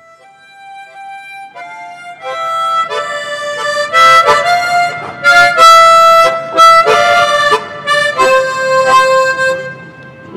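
Instrumental music: a slow melody of held notes, some sounded together as chords. It fades in from faint to loud over the first few seconds and eases off near the end.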